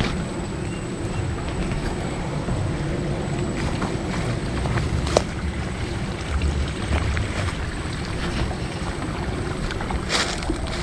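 Wind rumbling on the microphone, with rustling footsteps through grass and undergrowth and a sharp click, like a twig snapping, about five seconds in.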